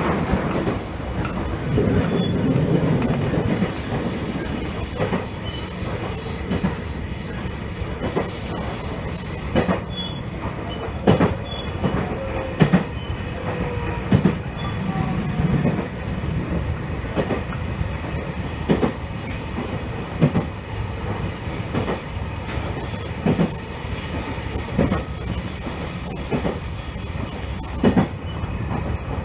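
Electric train running along the line, heard from inside, with irregular knocks of the wheels over rail joints and faint wheel squeal at times.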